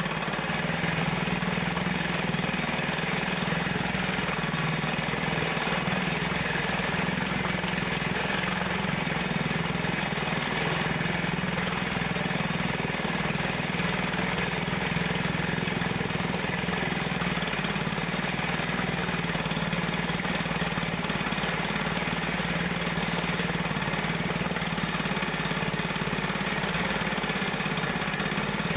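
A 1970 Western Auto 5 hp two-stroke outboard motor running steadily in a test barrel of water. Its carburetor float and needle have just been adjusted to cure a fuel problem, and it runs evenly without cutting in and out.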